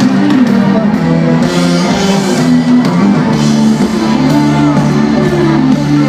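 Rock band playing live at full volume: a guitar riff of low notes stepping from one to the next, with bass and drums underneath.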